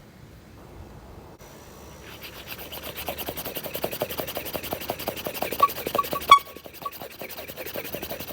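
Hand-pumped air horn being pumped fast: a quick rasping stroke rhythm starting about a second and a half in, with a few short, weak horn toots around two-thirds of the way through. The owner says the pump does not work well.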